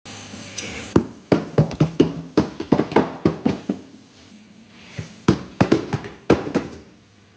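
Robot vacuum clattering and knocking: a rapid run of about a dozen hard knocks, then a few more after a short pause, typical of the machine tumbling down stairs.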